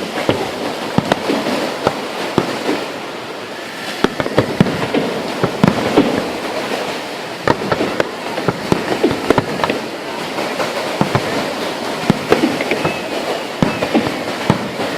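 Fireworks going off: a dense, irregular run of sharp bangs and crackles, many overlapping, with no steady rhythm.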